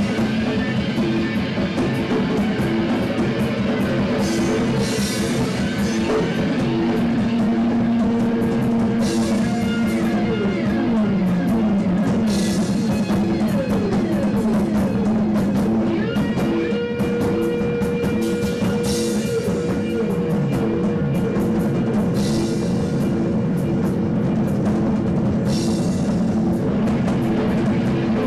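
Live band playing loud rock music: electric guitar and drum kit, with a cymbal crash every three to four seconds and a few notes sliding downward about halfway through.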